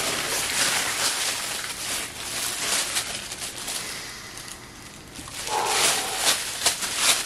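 Printed paper gift wrap on a skateboard rustling and crinkling as the board is handled and unwrapped, busiest in the first few seconds. It is followed by a few sniffs near the end.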